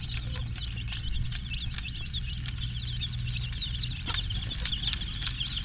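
A group of chicks peeping continuously in many short, high chirps, with scattered sharp taps as they peck at an overturned plastic toy train. A low steady hum runs underneath.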